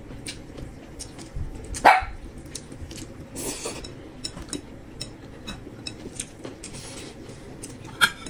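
Eating sounds: chopsticks clicking against a glass bowl and mouth sounds of chewing a steamed bun, with a short, loud, sharp sound about two seconds in.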